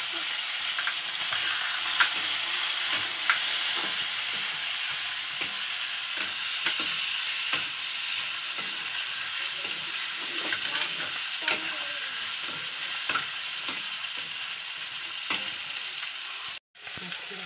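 Chicken pieces sizzling as they fry in a metal wok, with a metal ladle scraping and clicking against the pan as it is stirred. The sound cuts out briefly near the end.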